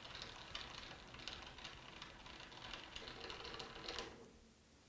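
Metal lathe cross slide being cranked by hand toward the rear, its handle and leadscrew giving a faint, irregular clicking and rattling that stops about four seconds in.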